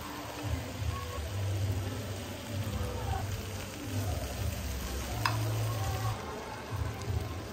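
Pork belly and kimchi sizzling on a grill pan while metal tongs stir and turn them, over an uneven low rumble. A sharp click about five seconds in.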